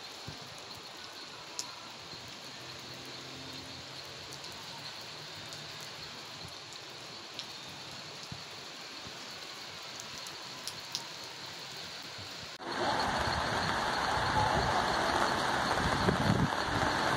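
Steady light rain with a few sharp drips ticking. About two-thirds of the way through it cuts abruptly to much louder rain, heard under an umbrella.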